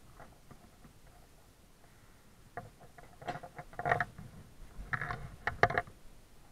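Irregular rustling, clicks and knocks of clothing and gloves moving right against a helmet microphone, bunched into two spells about halfway through and near the end.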